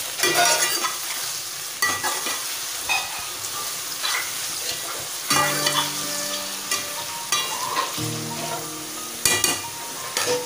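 Brinjal and green chilli pieces frying with a sizzle in an aluminium pot while a metal spatula stirs them, clicking and scraping against the pot again and again.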